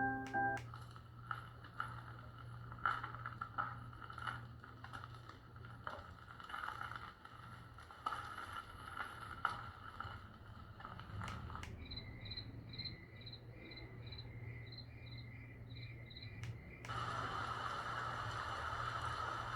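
Baby white-noise machine playing its built-in nature sounds one after another through its small speaker. First comes an insect-like track with scattered clicks. About two-thirds in, it changes to a high chirp pulsing about twice a second. Near the end it changes again, to a steady rushing noise.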